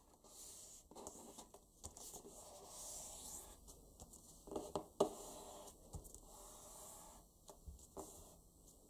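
Sheet of origami paper rustling and sliding on a wooden tabletop as fingers fold it into a triangle and press the crease flat, with a few sharper taps and crinkles near the middle.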